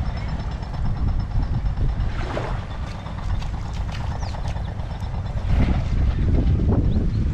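Wind buffeting the microphone with a steady low rumble, over the wash of the sea, with a few faint clicks and high chirps.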